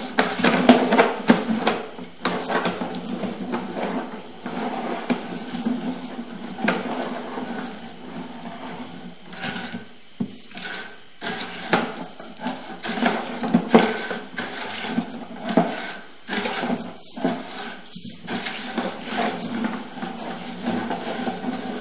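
Sewer inspection camera's push cable being fed by hand down the pipe: continuous irregular scraping and clattering knocks over a steady low hum.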